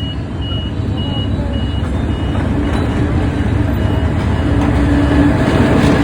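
Level-crossing warning beeper sounding about twice a second as a train approaches; its rumble grows steadily louder and a steady low drone joins from about halfway.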